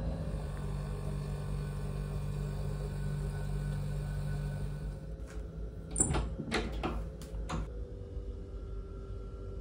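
A steady low hum for about five seconds, then a door's metal lever handle and latch clicking and the wooden door opening, a quick run of clicks and knocks over about two seconds.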